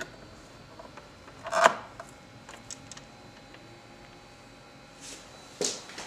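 Capsule-loading lever of a Bennoti capsule espresso machine being pushed shut, with one sharp, loud clack about a second and a half in, then a few light clicks and, near the end, a couple of knocks from handling the machine.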